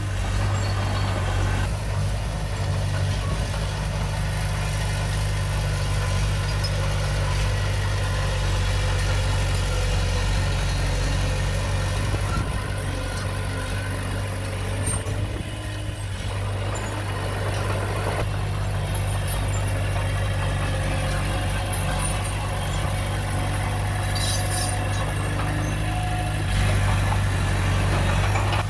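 Diesel engine of heavy earthmoving equipment running steadily with a low, even hum, with a few faint metallic clicks near the end.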